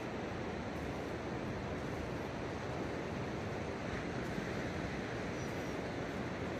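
Ocean surf at low tide: a steady, even wash of noise, with no single wave standing out.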